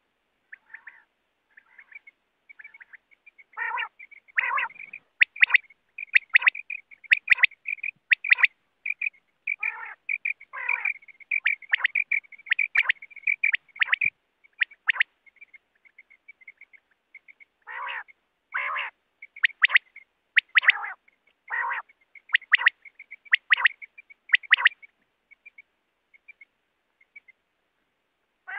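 Coturnix quail calling over and over: short, rough calls, often in pairs, mixed with quick runs of thin chirps, with a quieter spell of faint chirping about halfway through.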